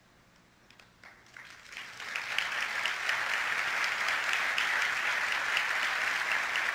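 Audience applause: after a second of near silence, scattered claps begin and quickly swell into full, steady applause by about two seconds in.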